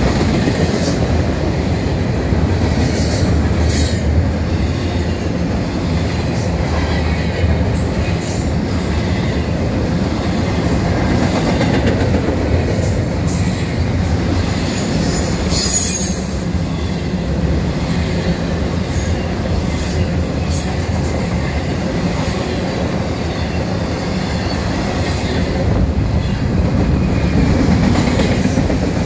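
Double-stack intermodal freight cars rolling past: a steady rumble and clatter of steel wheels on the rails, with a few sharp clicks scattered through.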